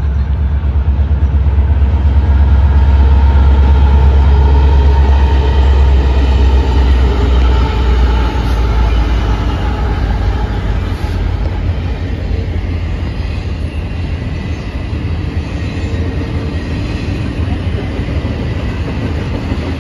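Union Pacific freight train passing: the low rumble of its three diesel locomotives is loudest in the first half, then the double-stack container cars roll by with steady wheel-on-rail noise.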